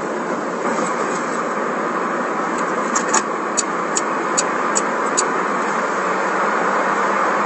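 Steady road and engine noise inside a moving car's cabin. From about three seconds in come about seven light clicks, roughly two a second.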